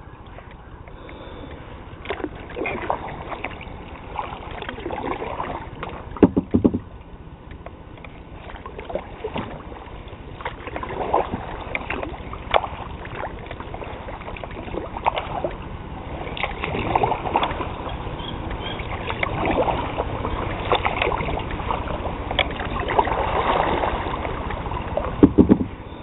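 Kayak paddle strokes dipping and splashing in the water, irregular, every second or two. Two louder knocks with a brief ring, about six seconds in and near the end.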